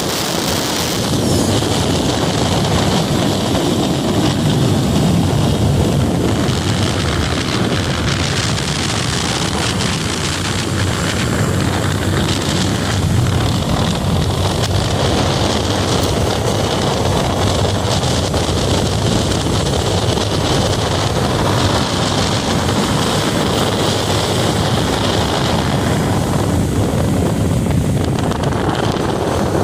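Motorcycle engine running at a steady riding speed, mixed with constant wind rush on the microphone.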